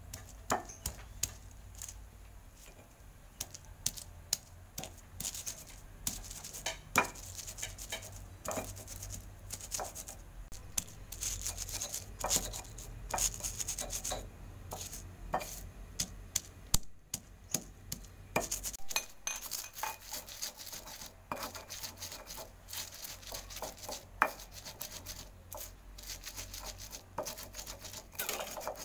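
Stone pestle (ulekan) crushing and grinding chillies in a flat stone mortar (cobek): irregular sharp knocks of stone on stone, with rubbing in between.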